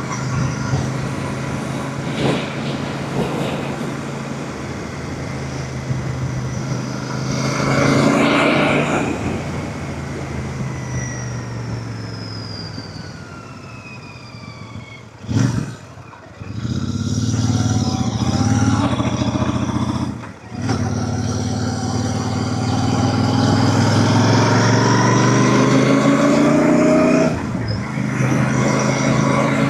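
Royal Enfield Super Meteor 650's parallel-twin engine under way. The engine note falls as the bike slows, drops out briefly twice, once around the middle and again a few seconds later, which fits gear changes with the clutch pulled, then rises steadily as the bike accelerates.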